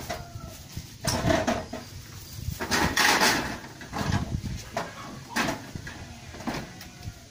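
A wooden door being pulled shut and fastened: a run of irregular knocks and rattles, loudest about three seconds in.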